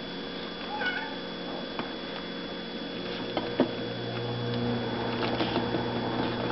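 Plastic spoon stirring malt extract into water in a small saucepan, scraping and knocking against the pan, with a short squeak about a second in and a sharp knock past the middle. A low steady hum comes in about four seconds in.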